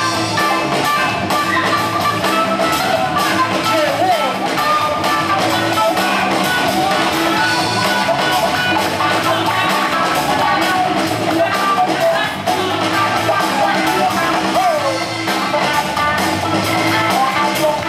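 Loud music with a steady beat: the backing track for a breakdancing battle.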